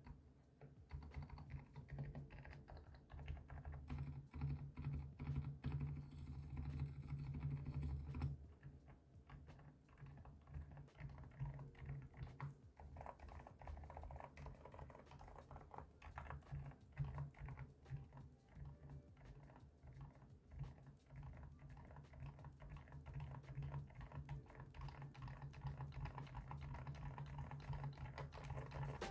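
Typing on a keyboard fitted with Kailh Deep Sea Silent tactile switches, unlubricated, in stock form: a continuous run of quiet keystrokes, damped by the silicone layer around the switch's bottom housing.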